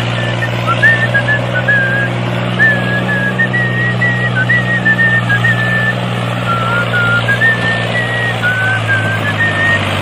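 Tractor engine running steadily as a low drone, with a thin high tone wavering in pitch above it.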